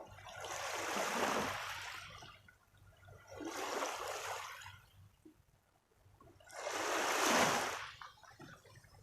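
Water washing in three swells about three seconds apart, each rising and falling away over a second or two, like small waves lapping at the water's edge.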